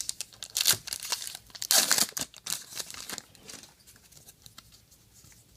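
Trading card pack wrapper being torn open and crinkled, loudest about two seconds in, then dying away to faint rustles and ticks of handling.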